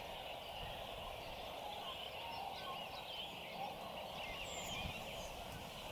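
A dense, steady chorus of distant animal calls: a busy low bubbling din with many short high chirps over it.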